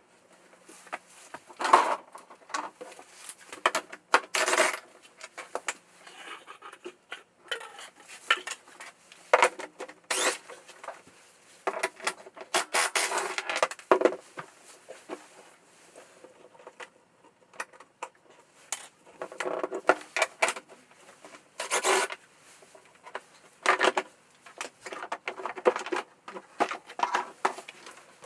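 Irregular clinks, taps and short scrapes of hard objects being handled, metal tools and parts knocking together; no engine running.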